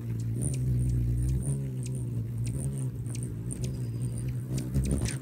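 Hummingbird hovering close while it feeds: the steady hum of its wingbeats, wavering slightly as it shifts, with many quick, very high chips throughout.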